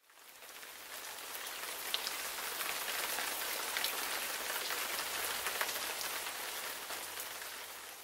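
Steady rain pattering, a dense hiss full of tiny drop ticks, fading in at the start and fading out near the end.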